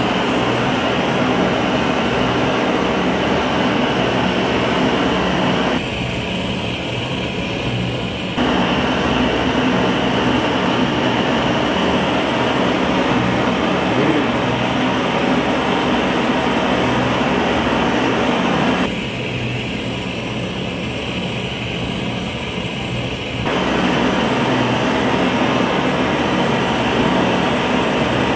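Handheld gas blowtorch running: a steady rushing roar of the flame that twice drops quieter for a few seconds, about six seconds in and again near the middle.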